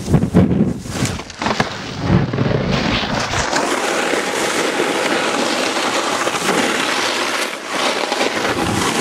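Snowboards scraping and sliding over packed snow, with wind on the microphone: several knocks and thumps in the first three seconds as a rider takes a fall, then a steady scraping hiss of boards on snow.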